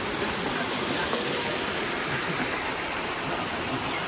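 A steady, even rushing noise with no rhythm or separate events.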